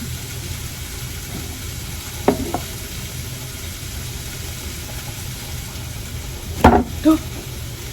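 Chicken and bacon sizzling steadily in a frying pan, with a light knock about two seconds in and two louder knocks near the end.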